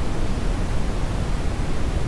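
Steady synthetic noise track: an even, unchanging hiss with a rumble, heavier in the low end than in the highs.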